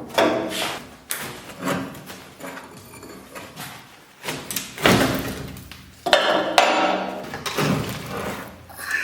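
Irregular heavy hammer blows knocking material apart during demolition, used in place of cutting with an angle grinder; each strike rings briefly.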